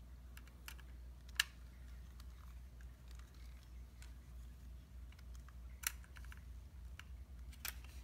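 Small clicks and ticks of a screwdriver working the screws of a 2.5-inch drive's metal mounting bracket: three sharp clicks, the loudest about a second and a half in, with fainter ticks between.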